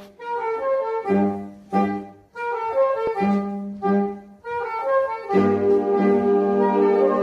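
Saxophone ensemble playing live: short phrases broken by brief pauses, then about five seconds in the whole ensemble comes in louder on sustained chords.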